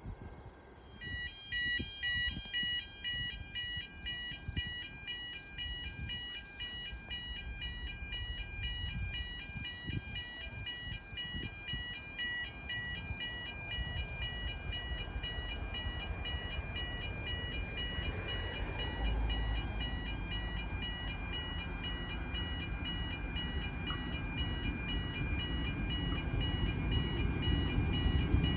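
Level crossing warning bells ringing in a steady repeating electronic pattern. Under them, an approaching Endeavour diesel railcar's rumble grows steadily louder toward the end.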